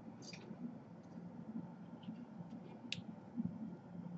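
Hot-air rework tool running steadily over a laptop motherboard chip, a low even hum, with a few faint ticks.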